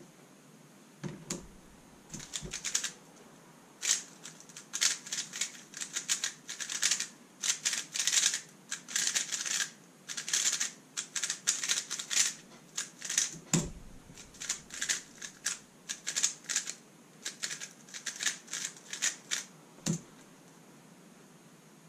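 Thunderclap v3 M magnetic 3x3 speedcube being turned in quick runs of fast, sharp clicking with brief pauses. A few dull thumps fall about a second in, about two-thirds of the way through, and near the end, where the clicking stops.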